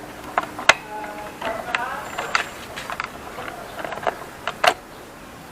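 Scattered sharp metal clicks and clinks, about half a dozen, as the clutch cable and its fittings are worked loose by hand on a Suzuki Raider R150 motorcycle.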